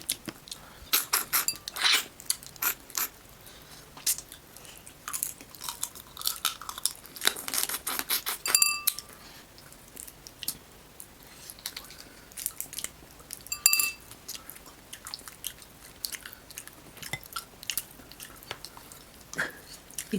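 Close-miked chewing and crunching of fried baby crabs, shells and legs cracking between the teeth in irregular bites. Two short ringing clinks about nine and fourteen seconds in.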